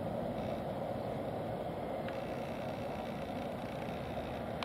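The twin turbofan engines of a J-Air Embraer regional jet running at low thrust as it taxis onto the runway: a steady jet rumble with a faint high whine above it.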